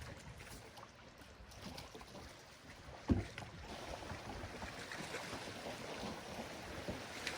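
Water lapping against the hull of a small fishing boat, with light ticks and splashes and wind on the microphone. A single sharp knock on the boat about three seconds in.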